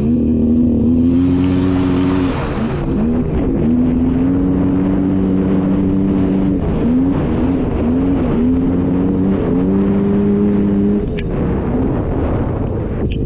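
Two-stroke ATV engine of a Polaris Scrambler 400 running on the trail under throttle. Its pitch holds steady for a couple of seconds at a time, then dips and climbs again as the throttle is eased and reopened. A brief hiss comes about a second in.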